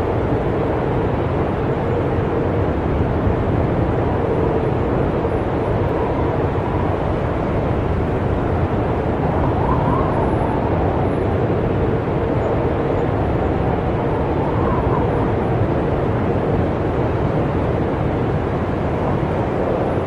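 Blizzard wind blowing steadily, a low rushing noise, with a faint howl that rises and falls in pitch about halfway through and again a few seconds later.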